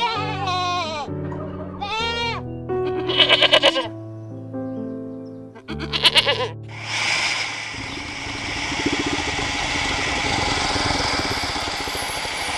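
Domestic goat bleating several times in short, quavering calls over soft background music. About seven seconds in, a long, steady hiss starts, as from the crocodile.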